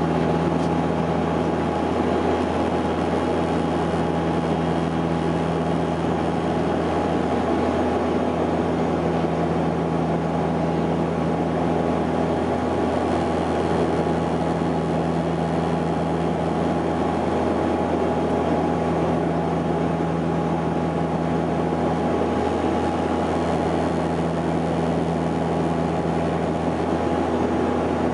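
Steady cabin drone of a Saab 340B in flight: its General Electric CT7 turboprops and propellers running evenly, a constant hum of several fixed tones over a rushing noise.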